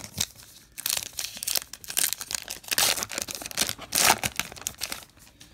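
Foil-lined wrapper of a baseball card pack being torn open and crinkled by hand: a run of crackling tears, loudest about four seconds in, then dying down.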